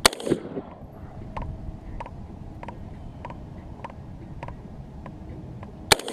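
Two single gunshots about six seconds apart, each with a short echo rolling off the surroundings. Faint ticks about every 0.6 s fill the gap between them.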